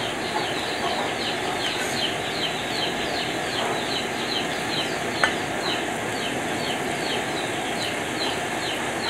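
Besan-coated potato fingers deep-frying in hot ghee in an iron kadhai, a steady sizzle. Over it a bird chirps high and short, two or three times a second, and one sharp click comes about five seconds in.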